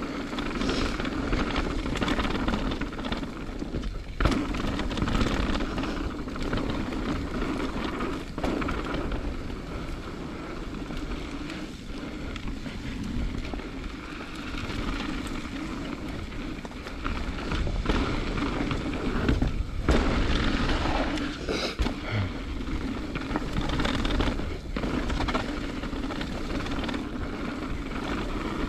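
Mountain bike ridden down a dirt-and-rock trail: a steady rumble of tyres and wind on the microphone, with rattling from the bike and a sharp knock now and then as it hits rocks.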